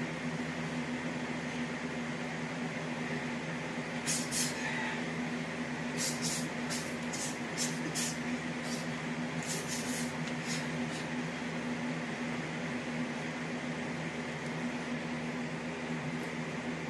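Steady low electrical hum of a small room, with a quick run of short, sharp swishes and taps, a couple about four seconds in and about a dozen between six and ten seconds in, from a man's feet and clothing as he throws kicks and strikes.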